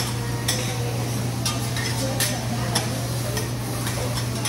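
Metal spatulas scraping and tapping on a teppanyaki flat-top griddle as food sizzles, with sharp taps about once a second over a steady low hum.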